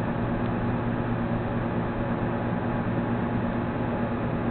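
Steady hiss with a low, even hum underneath, the background noise of a narrowband lecture recording.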